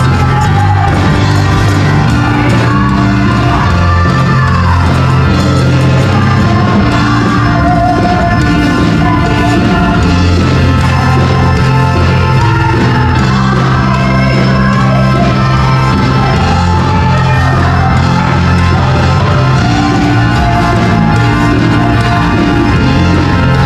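Live praise and worship music: a band with a held bass line under a group of women singing together through microphones, played loud over the PA in a large hall.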